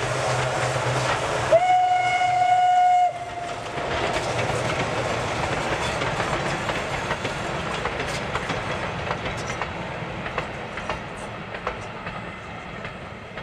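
Steam train passing: the locomotive's steam whistle gives one blast of about a second and a half, starting about a second and a half in. Then the coach wheels click over the rail joints as the train rolls by, fading near the end.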